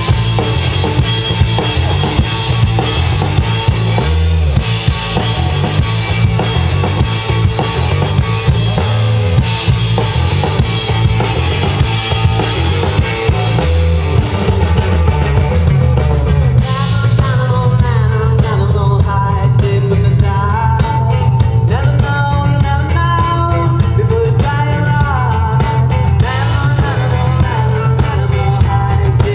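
A live band playing, with a steady drum beat and heavy bass. A wavering melody line comes in just past halfway.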